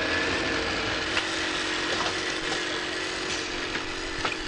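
Automatic collar-sewing machine running: a steady mechanical whir with an even hum and a few light clicks.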